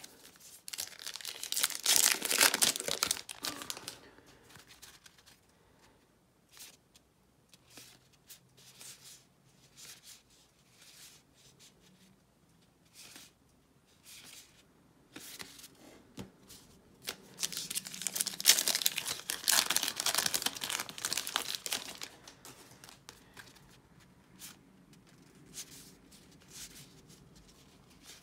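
Plastic wrapper of a retail baseball card pack being torn and crinkled, in two loud spells: one starting about a second in and one after the middle. Between them come soft, brief rustles of cards being handled.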